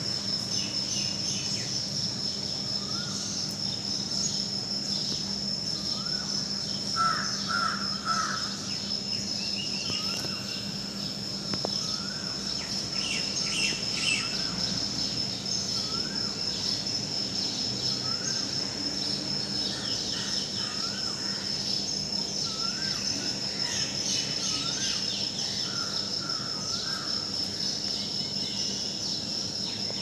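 Asian koel giving a short rising call over and over, about every two seconds, with crows cawing and other birds chirping. Under it runs a steady high insect trill, with a faint low hum.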